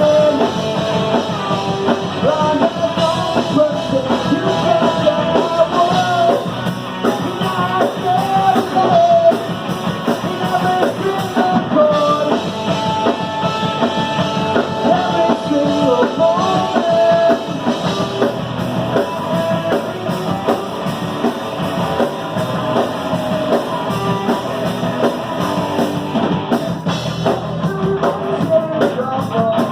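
Live rock band playing in a bar: drum kit and electric guitars driving a fast song, with a voice singing over them.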